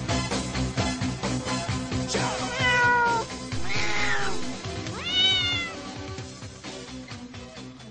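Cat meow samples from the Cat Piano app played as keyboard notes: three drawn-out meows about a second apart, over backing music. The music fades toward the end.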